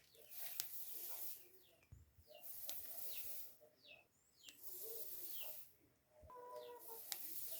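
Small birds chirping in short, falling calls, with a soft hiss swelling and fading about every two seconds.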